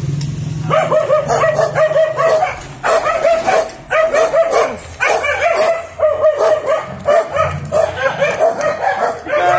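Dog barking over and over, in short runs about once a second.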